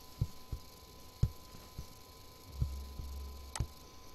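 A few separate mouse clicks over a steady low electrical hum, the loudest click about three and a half seconds in, as the program is run. A brief low drone sounds just before that last click.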